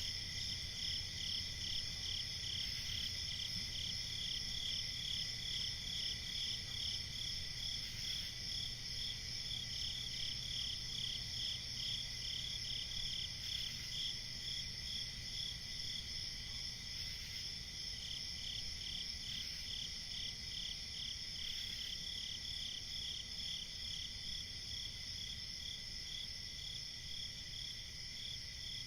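Chorus of crickets chirping steadily at night, one high trill pulsing rapidly over a constant higher insect drone.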